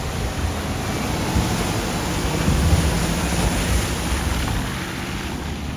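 Rushing, splashing floodwater at a ford, with a low rumble underneath that grows louder toward the middle and then eases.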